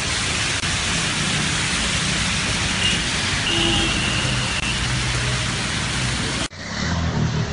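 Heavy rain pouring steadily onto a street, with cars and a bus running through the wet road. About six and a half seconds in, the sound cuts abruptly to a duller recording of rain and traffic.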